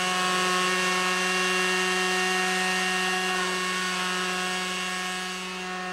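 Small model-aircraft engine running at a steady high pitch, driving its propeller in a half-round Custer channel wing test model.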